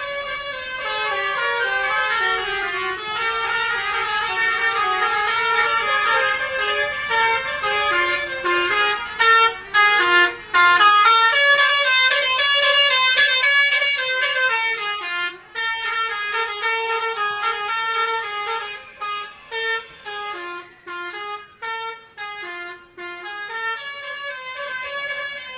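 Multi-tone musical horn of a decorated passenger bus playing a tune in stepped notes, several tones sounding together. In the second half the notes come as shorter blasts with brief gaps between them.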